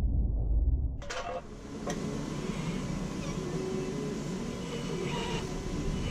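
A muffled low rumble cuts off abruptly about a second in. Then a sharp click or two, and the small electric motors of a radio-controlled excavator run steadily with faint squeals and whines as the claw works.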